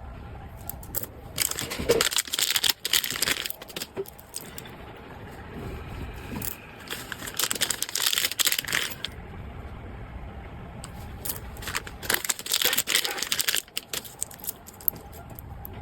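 Packaging crinkling and rustling as it is handled, in three bursts of a couple of seconds each, over a low steady rumble.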